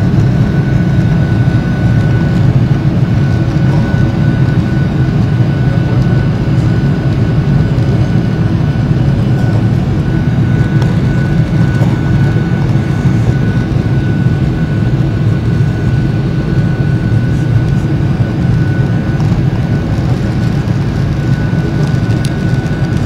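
Cabin noise of a Boeing 737-800 climbing after takeoff: its CFM56 turbofan engines running steadily at climb power, heard through the fuselage beside the wing as a loud, even low rumble with a thin steady whine on top.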